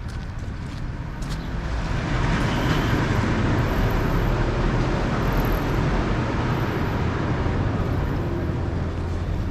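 Steady rumble of vehicle traffic, swelling about two seconds in and holding.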